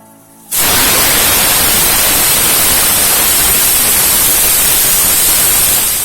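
Pressure cooker whistling: a loud, steady hiss of steam venting that starts suddenly about half a second in and cuts off near the end. This single whistle signals that the chicken is cooked and the stove is to be switched off.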